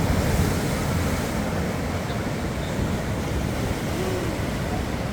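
Atlantic surf washing in: a steady rush of breaking waves with a deep rumble underneath.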